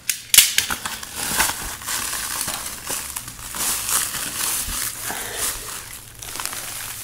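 Heavy plastic shrink wrap being pulled and worked off a transformer tank, crinkling and crackling irregularly, with a sharp snap about half a second in.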